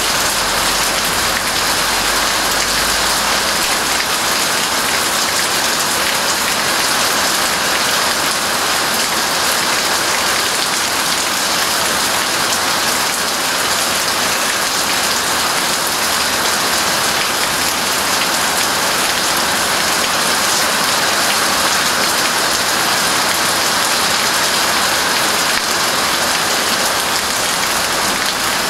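Steady rain, an even hiss of falling drops that keeps on without a break or change in strength.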